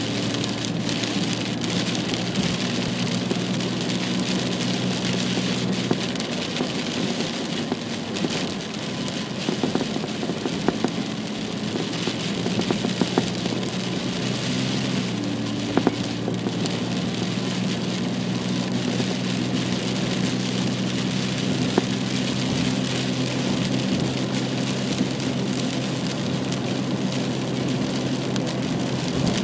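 Rain and wet-road noise heard from inside a moving car, with scattered light ticks. Under it a steady low engine and road hum shifts in pitch twice, as the car changes speed.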